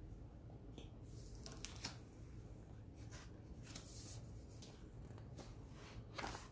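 Paper pages of a picture book being turned by hand: a series of faint, short rustling swishes.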